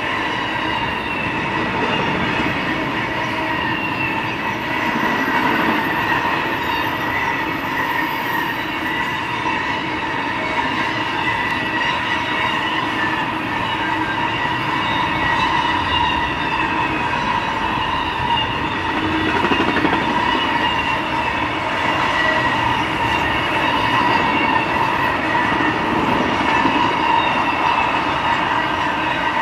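Intermodal freight train cars loaded with highway trailers and containers rolling steadily past: the continuous rumble of steel wheels on rail, with a wavering high-pitched squeal from the wheels over it.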